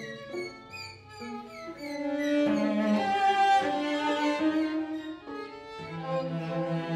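String quartet playing: bowed violins, viola and cello holding and changing notes, with short sliding high notes in the first two seconds and a low held cello note entering near the end.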